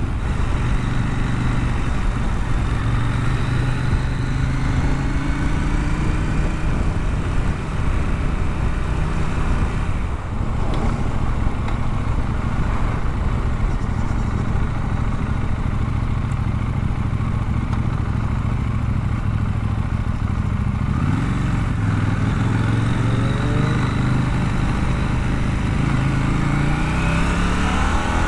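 Motorcycle engine running while riding, with rushing wind and road noise over it. A short dip about two-thirds in, then the revs climb in rising sweeps near the end as the bike accelerates.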